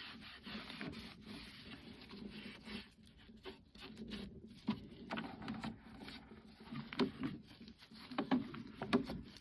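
Faint rubbing and scattered light clicks and taps from handling and wiping down the plastic parts of a disc repair machine.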